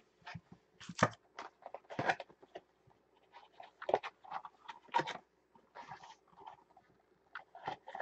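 Cardboard trading-card hobby box and its foil-wrapped card packs being handled: scattered rustles, taps and scrapes, the sharpest about 1, 2, 4 and 5 seconds in.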